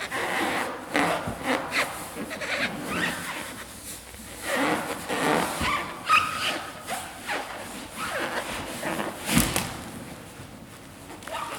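A large latex balloon squeaking and rubbing as someone sits and bounces on it, with short high squeaks among the rubbing. There is a sharp thump about nine seconds in.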